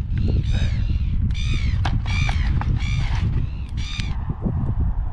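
A bird giving a quick series of harsh, arching calls, about two a second, that stop about four seconds in, over a constant low rumble.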